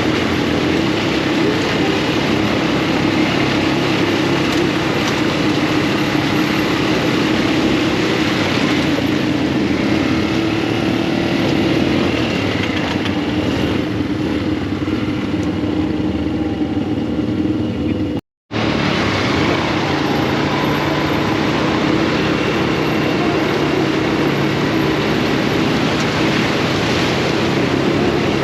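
Off-road buggy engine running steadily while driving. The sound cuts out completely for a moment about two-thirds of the way through.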